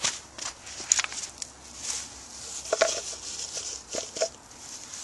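Irregular light clicks and rustles of hands handling a hand-drill fire kit of dry wood and root material.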